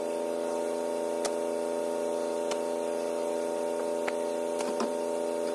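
A steady electrical-type hum made of several low, even tones, with a few faint clicks scattered through it.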